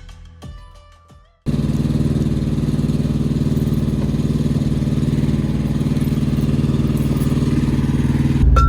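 Intro music ends abruptly about a second and a half in. A semi truck's diesel engine then runs steadily, turning deeper and louder near the end.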